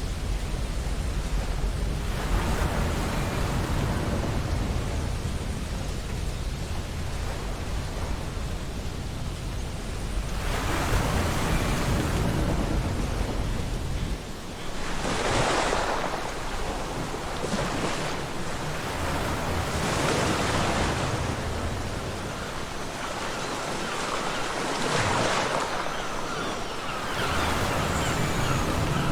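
Ocean waves washing onto a beach: a steady surf hiss that swells into a fresh wave break every few seconds, about five in all.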